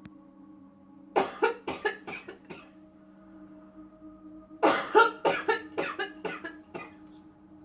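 A person coughing in two fits of rapid, repeated coughs, the first about a second in (around six coughs) and a longer one near the middle (around nine coughs), over soft ambient music with steady held tones.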